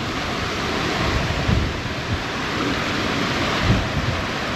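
Small waterfall pouring into a rocky pool: a steady rush of falling water, with gusts of wind rumbling on the microphone.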